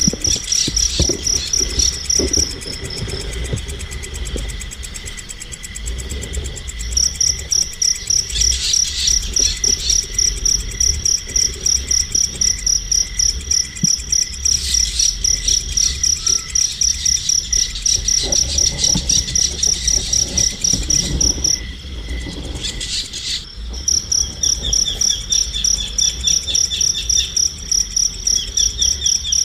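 A cricket chirping in a fast even rhythm, about three or four chirps a second. It stops twice for a few seconds and starts again. Brief high bird chirps come in now and then.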